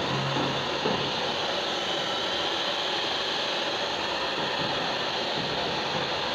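Handheld hair dryer blowing steadily, used as a blower to heat a vinyl sticker's adhesive.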